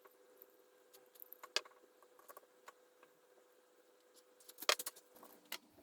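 Faint, scattered clicks and taps of small 3D-printed plastic switch parts being handled and fitted together, with a short cluster of clicks about a second and a half in and another near the end.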